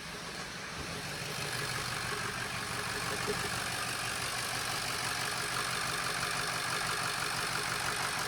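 Ford 6.0 Powerstroke V8 turbo-diesel idling steadily after its high-pressure oil leak has been repaired, now starting and running. The sound grows a little louder over the first couple of seconds, then holds steady.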